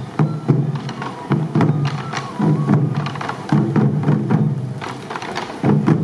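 Sansa drumming: a troupe of waist-worn taiko drums beaten together in a running rhythmic pattern, with a thin high flute melody above it.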